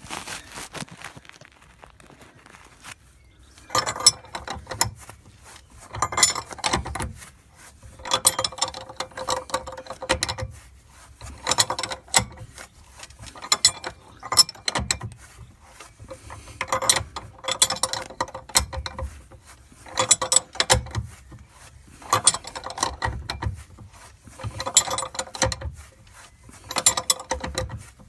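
A ratchet spanner clicks as it winds a nut down a threaded bar, drawing a cutlass bearing into the stern tube. The clicking comes in repeated strokes about every two seconds, starting about four seconds in.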